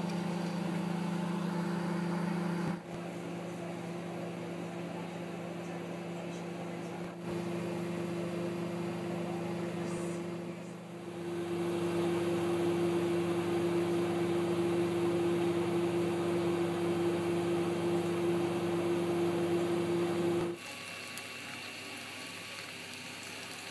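Microwave oven running: a steady hum that cuts off abruptly near the end.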